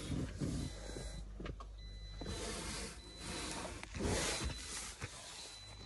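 Rustling and rubbing handling noises as faux-leather car seat covers are fitted and the phone is moved about, with two longer swishes about two and a half and four seconds in and scattered small knocks.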